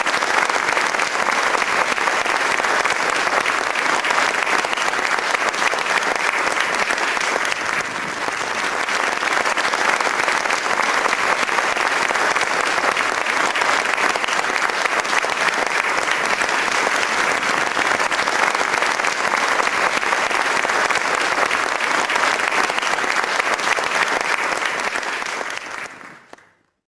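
Audience applauding steadily and continuously, the clapping fading out quickly near the end.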